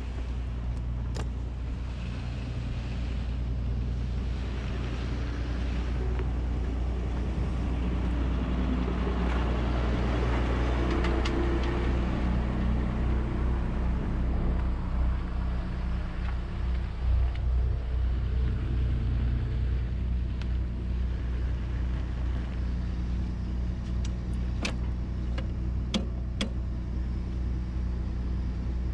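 Mercedes-Benz MB Trac 1600 tractor's diesel engine running while driving, heard from inside the cab with the roof hatch open. The engine gets louder over the first ten seconds or so and then runs steadily, with a few sharp clicks near the end.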